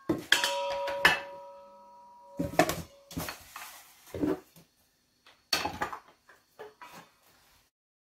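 An empty stainless steel mixing bowl is set down on the countertop with two knocks, ringing for a couple of seconds. Several more clinks and knocks follow as bowls are stacked together.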